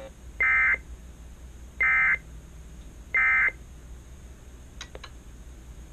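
Emergency Alert System end-of-message (EOM) signal: three short, identical buzzy digital data bursts about a second and a half apart, marking the end of the alert. Two faint clicks follow near the end.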